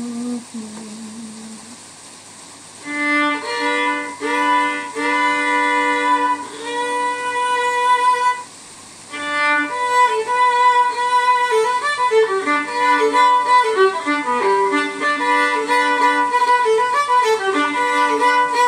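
Solo fiddle played with the bow: a short low note, then held notes from about three seconds in, a brief stop just before halfway, and then a continuous run of quicker notes.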